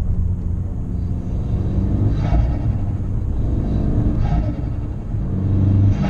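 In-cabin sound of an Abarth 595 Competizione's turbocharged 1.4-litre four-cylinder pulling on the road, with two short bursts of turbo flutter (chatter) about two and four seconds in. The flutter comes as the throttle closes: the recirculation (dump) valve is unplugged, so boost air is pushed back through the turbo's compressor.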